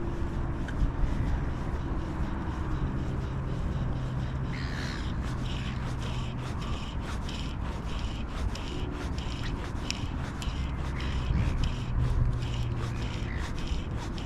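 Outdoor ambience: wind rumbling on the microphone under a low steady hum, with birds calling from about four seconds in.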